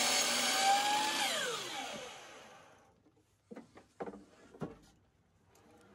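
DeWalt compound miter saw running as its blade cuts through a cedar board, then released about a second in, its motor whine falling in pitch as it winds down. A few sharp knocks follow as the wood is handled.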